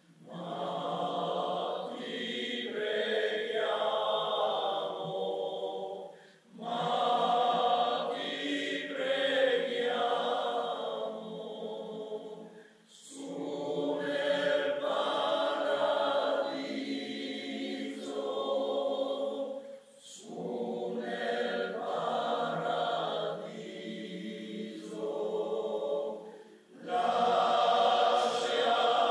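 Choir singing a piece in long phrases, with a short break for breath between phrases about every six to seven seconds.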